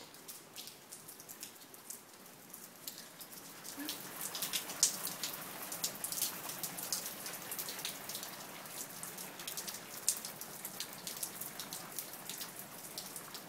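Rain falling outside an open door, with many small drips pattering on a hard surface; it gets louder about four seconds in.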